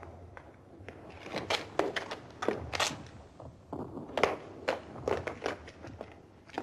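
Footsteps and shuffling movement over a rubble-strewn floor: irregular crunches and sharp knocks, a dozen or so scattered through, with no steady rhythm.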